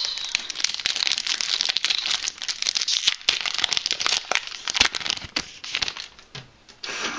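A foil Yu-Gi-Oh booster pack wrapper is crinkled and torn open by hand: dense crackling for about five seconds, then sparser rustles and clicks as the cards are handled.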